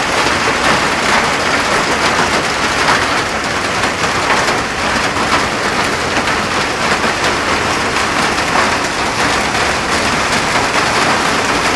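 Heavy hail and rain pelting the street: a dense, steady hiss full of fine ticks from the hailstones striking.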